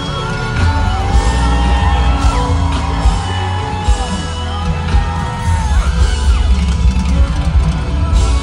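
Live concert music: a woman sings a gliding melodic line into a microphone over electric guitar and loud, heavy bass.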